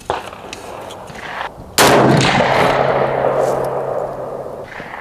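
One 7.62x39 rifle shot from an AK-47 firing PPU 123-grain ammunition, loud and sharp, about two seconds in. It is followed by a long echoing decay that fades over the next few seconds.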